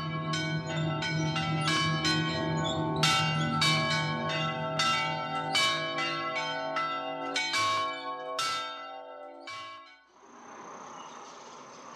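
Church bells ringing in a run of irregular strokes, about two a second, each ringing on into the next over a low steady hum. The ringing stops near the end, leaving only a faint hiss.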